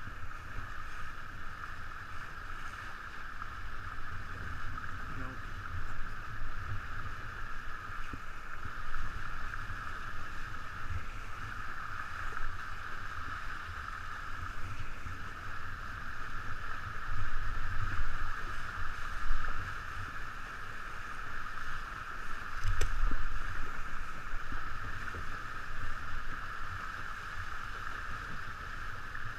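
Steady rush of water and wind past a 49er racing skiff sailing at about eleven to twelve knots under gennaker, with low gusting wind buffeting on the microphone. A single sharp knock comes about three-quarters of the way through.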